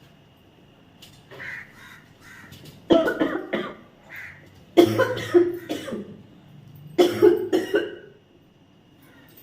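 A person coughing in three hard fits about two seconds apart, each fit made of several coughs: a reaction to the pungent fumes of dried red chillies being cooked.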